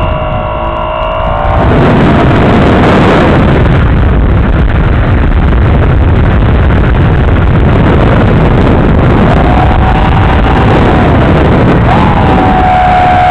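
Loud rushing noise of an FPV glider in flight, heard through its onboard microphone. A whine comes and goes over it: at the start for about a second and a half, and again from about nine seconds in, wavering slightly in pitch.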